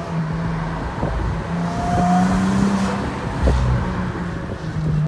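Car engine running steadily; its hum rises a little in pitch about one and a half seconds in and drops back near the end.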